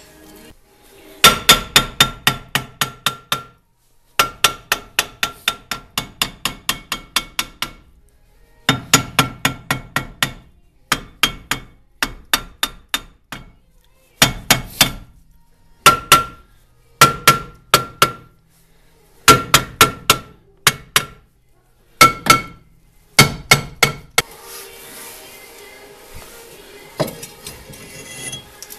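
A hammer striking a metal part in rapid runs of blows, about five a second, each run lasting one to three seconds with short pauses between. Each blow rings with a metallic tone. The blows stop about four seconds before the end.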